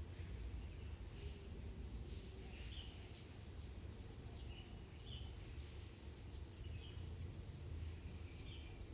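Small birds chirping: about a dozen short, high notes that drop quickly in pitch, scattered irregularly, over a steady low background rumble.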